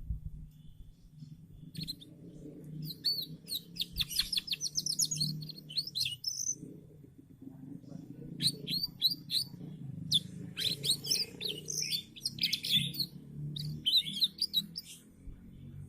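Domestic canary singing in several bursts of rapid chirps and trills, with short pauses between phrases, over a low steady background hum.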